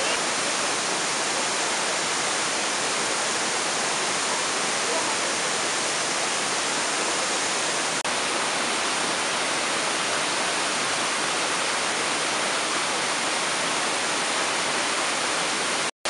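Waterfall pouring down a rock face into a boulder-strewn stream: a steady, even rush of falling water, briefly broken off about halfway through.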